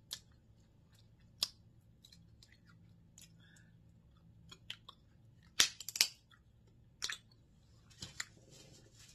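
Crab leg shells being cracked and picked apart by hand, giving a scatter of short, sharp snaps and clicks, with chewing between them; the loudest two snaps come a little past the middle.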